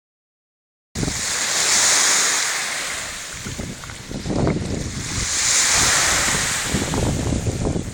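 Surf breaking on the beach: two waves swell and wash out about four seconds apart, with wind buffeting the microphone. The sound starts abruptly about a second in.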